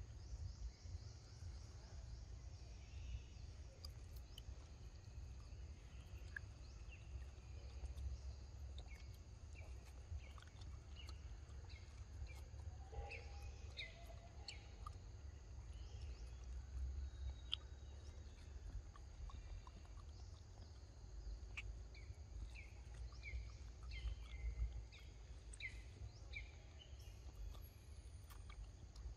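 Quiet woodland ambience: a steady low rumble with scattered short bird chirps.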